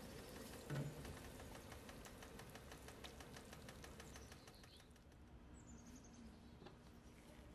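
Faint crackling and ticking from a stainless steel pot of water being heated, with a soft knock about a second in as a block of instant ramen noodles is set into it. The crackling fades after about five seconds.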